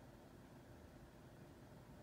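Near silence: faint steady low background noise.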